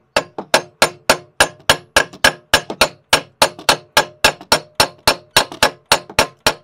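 Hammer blows on a steel bolt threaded into a snowmobile jack shaft, a steady run of about three to four ringing metallic strikes a second, driving on a jack shaft that is stuck in its bearing.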